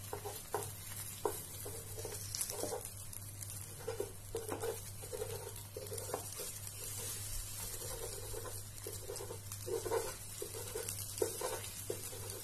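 An omelette sizzling in oil in a nonstick frying pan while a utensil's edge chops it into small pieces, with many short, irregular knocks and scrapes against the pan.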